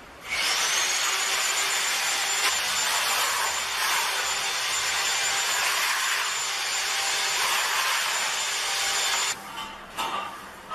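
An electric power tool starts just after the opening, its high whine rising as it spins up, then runs steadily with a loud hiss. It cuts off abruptly about nine seconds in, and a few light knocks follow.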